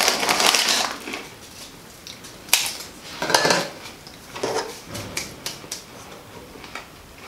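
Crispbread and its cardboard box being handled at a table: a burst of crunching and crackling in the first second, then shorter crunchy bursts and scattered light clicks and taps as food and packets are picked up and set down.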